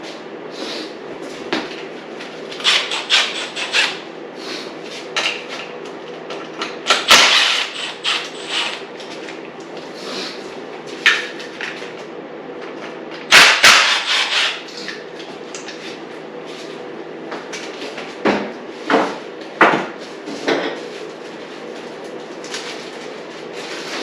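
Irregular metallic clicks, knocks and clatter of hand tools and parts being handled while the radiators come off a dirt bike, with louder clattering bursts about a third and halfway through.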